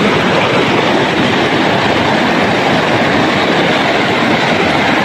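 Shallow river water flowing over a pebble and cobble bed, a loud steady rushing.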